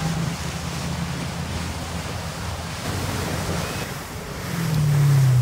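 Motorboat running under way while towing an inflatable tube, a low engine drone under rushing water and wind buffeting the microphone. Near the end the drone swells louder and its pitch dips slightly.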